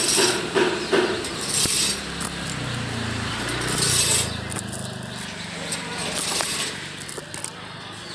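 Chain-operated rolling shutter with interlocking perforated steel grille slats being raised: the slats rattle and clink against each other as they lift. The clatter is busiest over the first few seconds and thins out toward the end.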